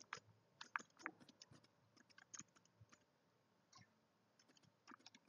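Faint, irregular clicks of computer keys being typed and a mouse being clicked, a few strokes a second with gaps.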